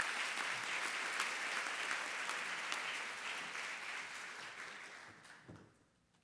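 Audience applauding, a steady patter of many hands clapping that dies away about five to six seconds in.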